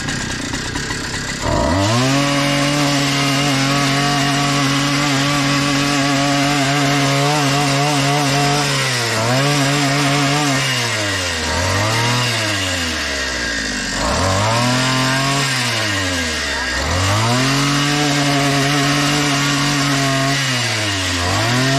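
Two-stroke engine of an Einhell petrol multi-tool with an Oregon bar-and-chain pole saw attachment, revving up to full throttle about a second and a half in and holding there while cutting branches. The throttle is then eased off and opened again several times, so the engine note falls and rises repeatedly.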